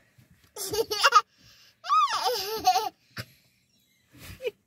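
A toddler laughing in two high, squealing bursts, then a woman starting to laugh in short, even ha-ha pulses near the end.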